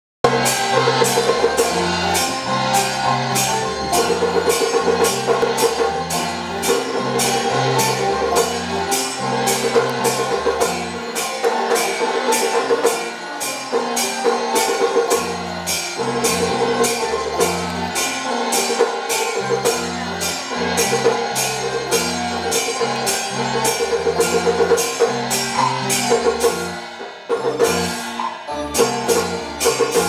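Taiwanese opera (gezaixi) accompaniment music, an instrumental passage with a steady percussion beat of about two strokes a second over a bass line and melodic instruments.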